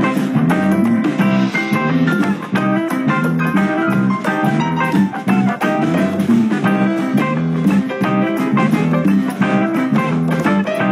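Background music: upbeat plucked guitar with bass and drums and a steady beat.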